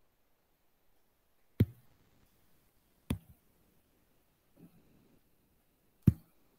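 Three sharp single clicks of a computer mouse, spaced a second and a half to three seconds apart, as on-screen video-call controls are clicked through.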